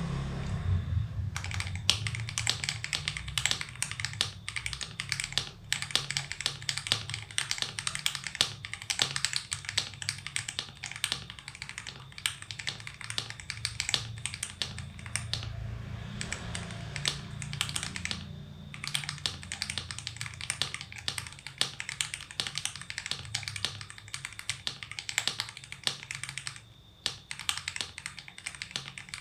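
Typing on a mechanical keyboard fitted with KTT Panda linear switches lubed with Krytox 205g0: a dense, irregular run of keystrokes starting about a second in, with two brief pauses.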